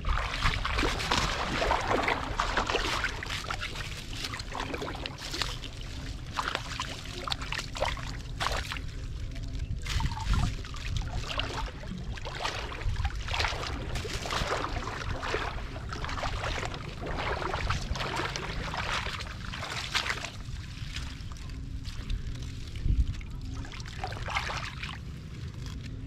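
Shallow muddy water splashing and sloshing as a large woven basket is pushed through it and lifted, with water trickling and draining out through the weave, in repeated irregular splashes.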